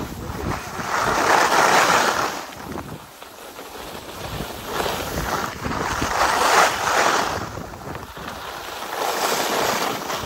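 Skis scraping across hard, dry packed snow in three long hissing swells, one with each turn, with wind buffeting the microphone underneath.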